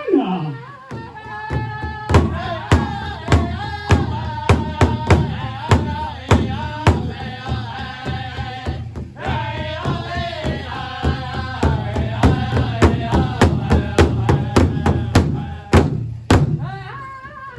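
Powwow drum group singing over a big hand drum struck in a steady beat, about two strikes a second. The singing and drumming dip briefly about halfway through.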